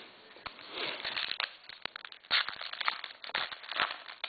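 Trading card pack wrapper crinkling and tearing as it is opened, with cards being handled: a run of short crackles and sharp clicks.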